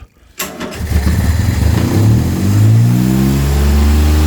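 Car engine catching about half a second in and revving up, its pitch rising over a couple of seconds before it holds at a fast, steady speed. It is restarting once its fuel supply is restored, after the petrol pipe had been pinched underfoot.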